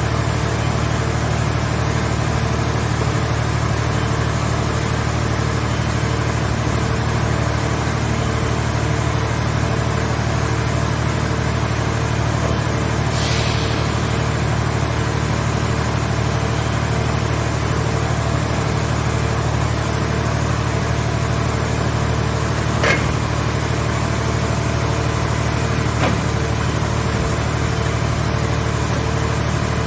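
Scrap car shell baler's power unit running steadily with a constant low hum, a short hiss partway through and two sharp clicks later on.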